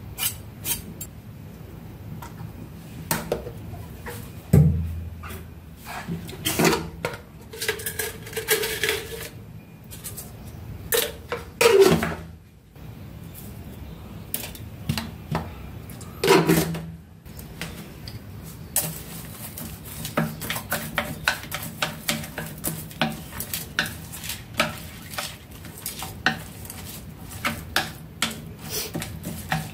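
Kitchen utensils working on a plate of raw meat. A knife scrapes and knocks chopped garlic and chili onto the plate, with a few louder knocks in the first half. Later a spoon adds seasoning, and in the second half wooden chopsticks tap and click quickly against the plate as the meat is mixed.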